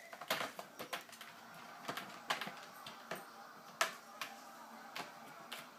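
Irregular sharp clicks and taps of a cat pawing at a toy in a plastic ring-shaped track toy, about a dozen in all, the loudest about four seconds in.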